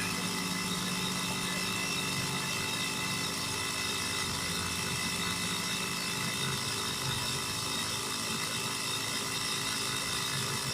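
Air compressor running steadily while a car tire is inflated on its rim. The bead has not yet seated.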